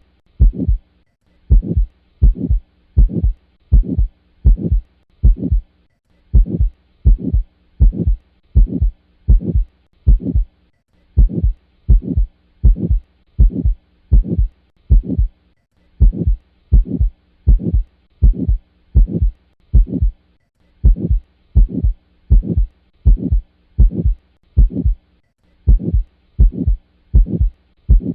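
Auscultated heart sounds of semilunar valve stenosis, with the murmur that goes with it: a regular low beat about twice a second, with a brief gap every five seconds or so, over a faint steady hum.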